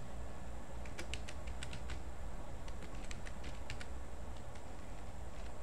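Computer keyboard being typed on in two quick runs of keystrokes, about a second in and again about three seconds in, over a steady low hum.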